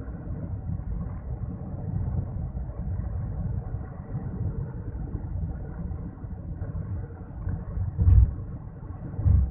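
Road noise of a moving car heard from inside the cabin: a steady low rumble, with two short heavier thumps near the end as from bumps in the road.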